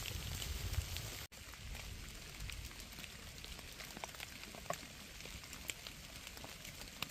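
Light rain in a forest: a steady soft hiss with scattered sharp drips. A low rumble in the first second stops at a sudden break.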